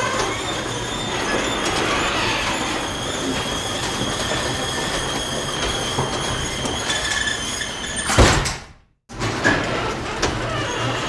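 Garage door rolling down on its track, a steady metallic rumble with thin squealing tones. About eight seconds in there is a loud thump, the sound cuts out for half a second, and then the rolling rumble starts again.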